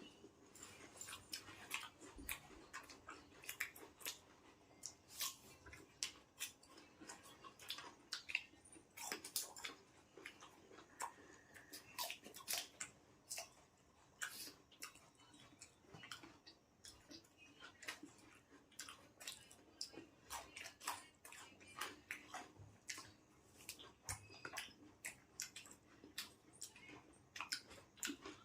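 Apple being chewed: crisp, irregular crunches, several a second.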